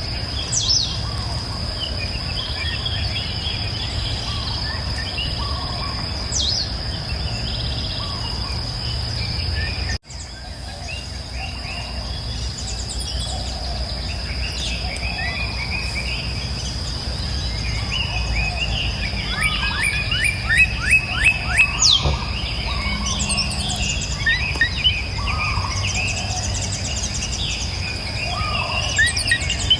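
Songbirds chirping and calling over a steady high-pitched insect drone and a low background rumble. About ten seconds in, everything cuts out for an instant and fades back in, a splice in the recording. A run of quick repeated chirps a little past the middle is the loudest part.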